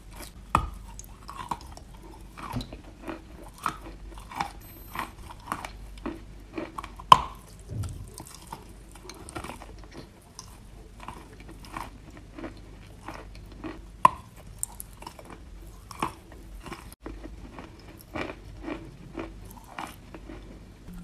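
Close-up chewing of wet chalk: soft, crisp crunches about one to two a second, with a few sharper, louder bites.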